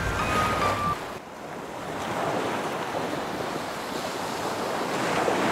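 Sea waves surging and washing, with wind, swelling about two seconds in and again near the end. The last notes of music fade out in the first second.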